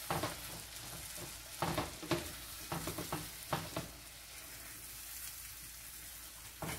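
Yogurt and tomato-spice masala sizzling in butter in a nonstick frying pan over low gas, a silicone spatula scraping and stirring through it in short strokes. The strokes are mostly in the first four seconds, after which the sizzle carries on by itself.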